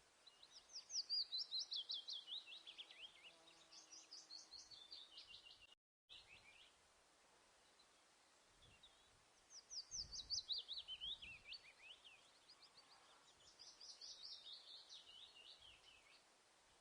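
A songbird singing two long songs, each a rapid run of high chirping notes that sweeps downward in pitch in two phrases. The sound cuts out completely for a moment near the end of the first song.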